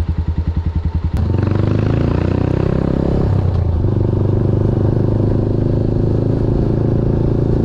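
Motorcycle engine idling with an even, pulsing beat, then, about a second in, a sudden change to the motorcycle running steadily under way.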